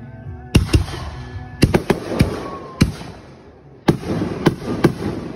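Fireworks bursting overhead: a rapid string of about ten sharp bangs in quick clusters, with crackling and hiss between them.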